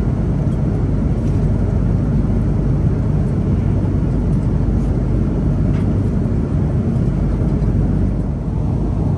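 Steady cabin noise of an Airbus A330 airliner in flight: an even, low rumble of engine and airflow noise.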